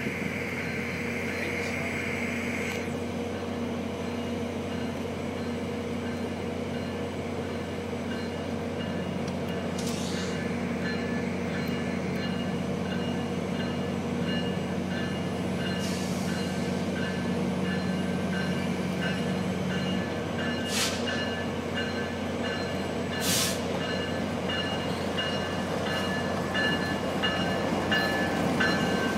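Diesel locomotives of a freight train led by a GE ES44DC and a C40-8 approaching slowly, a steady engine drone that grows gradually louder. A few sharp clanks come through, and a repeated high squeak starts in the last several seconds.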